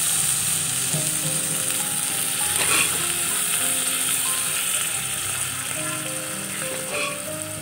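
Boiled dal and fried masala sizzling in a hot kadai while a spatula stirs them together, the sizzle easing off slowly as the wet dal goes in. A couple of light spatula knocks against the pan, under soft background music.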